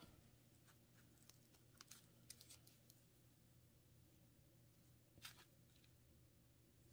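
Near silence, with a few faint clicks and taps from hands handling a doll and its cardboard-and-plastic packaging: a small cluster about two seconds in and one more about five seconds in.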